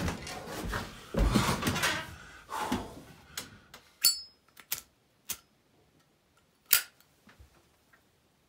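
Someone moving about inside a small wooden shed: shuffling and rustling for about three seconds, then four or five separate sharp clicks and knocks.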